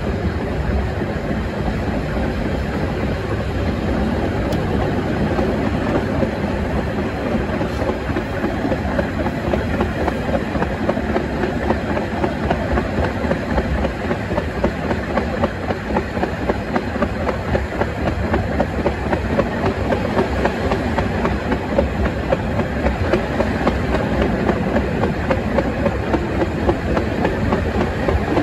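Metre-gauge train running steadily, heard from on board: a continuous rumble of the carriages with the wheels clicking over rail joints in a rhythmic clatter that grows more pronounced in the second half.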